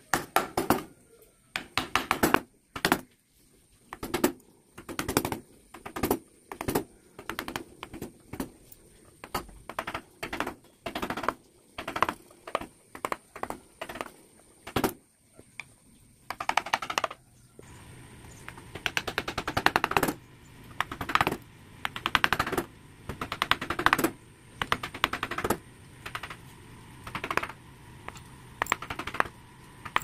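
Wood-carving chisel being tapped into wood with a mallet: clusters of quick, sharp taps, a few a second, with short pauses between.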